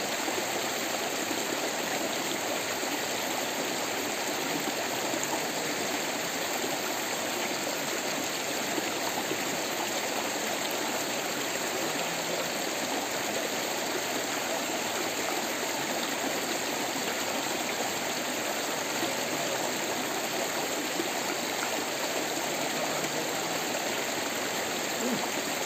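Shallow rocky mountain stream flowing and splashing over stones, a steady rush of water.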